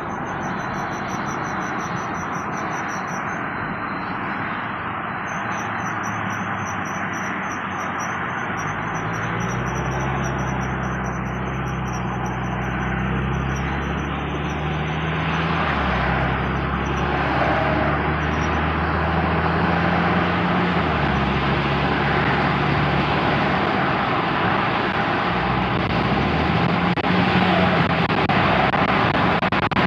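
Audi A4 B7 on the move with steady road and engine noise, and a faint high-pitched chirp from the brakes repeating several times a second, in time with the wheels. The chirping stops about halfway through, and the engine note rises and shifts after that.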